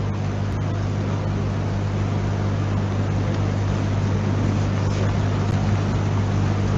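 Steady low electrical hum with a constant hiss, the background noise of a courtroom audio feed.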